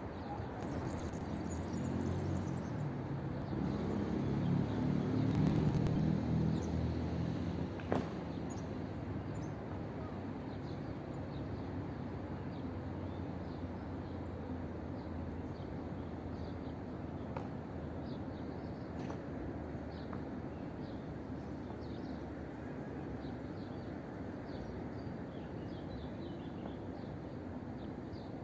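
Outdoor background noise. A low rumble swells and fades over the first several seconds, and a single sharp click comes about eight seconds in. After that the noise holds steady, with small birds chirping now and then.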